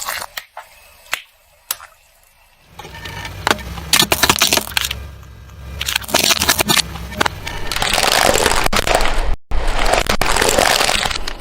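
Car tyres rolling over and crushing rubber balls: scattered sharp cracks and pops at first, then dense crackling and crunching from about three seconds in, loudest in a long stretch near the end that is broken by a brief gap.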